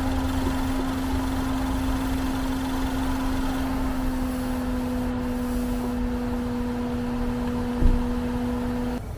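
Land Rover engine idling with a low rumble and a steady hum on top, which cuts off just before the end; one thump about eight seconds in.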